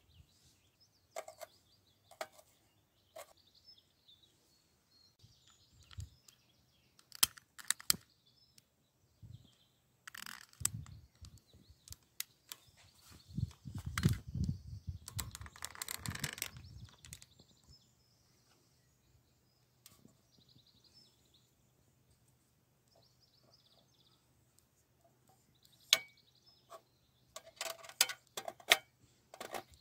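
Scattered small clicks and knocks of miniature utensils and ingredients being picked up and set down on a metal table and wooden board, with a longer stretch of rustling noise midway and a quick run of sharp clicks near the end. Faint bird chirps in the background.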